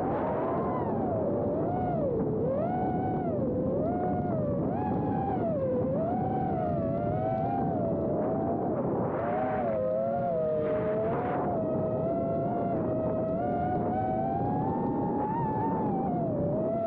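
4-inch FPV quadcopter's BrotherHobby 2004 3150KV motors spinning Gemfan 4023 tri-blade props, whining in several close pitches that rise and fall constantly with throttle, over a steady rush of wind and prop wash picked up by the onboard camera's microphone.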